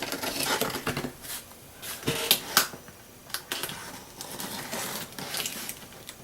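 A cardboard shipping box being handled and opened: irregular clicks, taps and scrapes of cardboard and packing, with a couple of sharper knocks about two seconds in.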